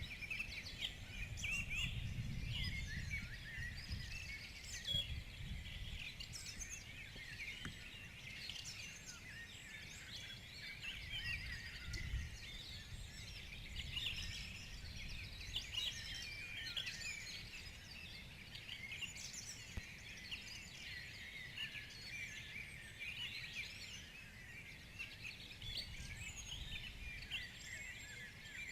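Morning chorus of many forest songbirds singing and chirping at once, overlapping throughout, over a low rumble that is strongest in the first few seconds.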